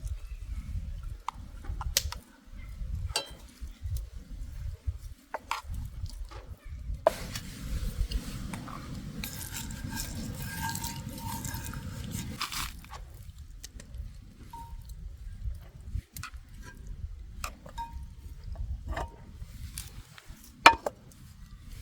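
Camp cooking sounds: scattered light clinks and knocks of metal cookware and utensils, with about five seconds of steady hissing in the middle.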